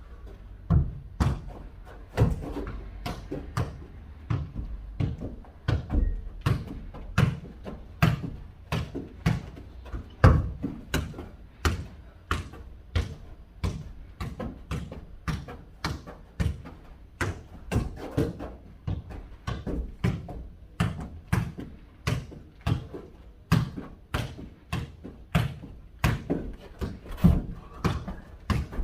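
A football being kicked and bouncing on the floor in a long jokgu rally: a steady run of sharp thuds, roughly one or two a second.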